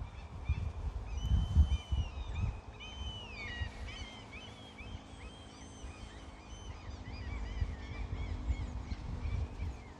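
Birds calling in many short, repeated chirping notes, over an irregular low rumble with thumps that are strongest in the first two seconds.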